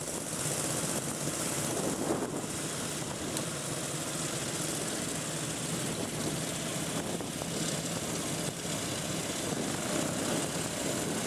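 Vintage Rudge motorcycle engine running steadily at low revs, a continuous even engine note.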